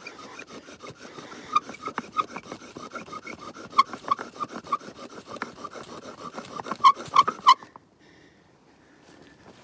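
Wooden friction-fire drill spindle grinding and squeaking back and forth against a hearth board, about two to three strokes a second, to build up hot wood dust for an ember. The strokes get louder and faster toward the end, then stop suddenly.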